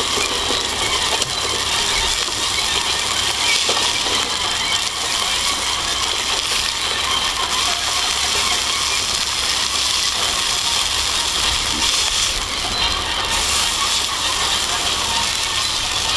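Dense, steady crackling and sizzling of hamburger patties cooking over a campfire.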